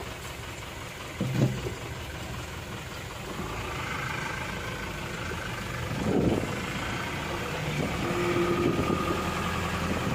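A vehicle engine running at low speed in slow traffic, heard from inside the cabin, with steady road noise. Two brief knocks stand out, about a second in and about six seconds in.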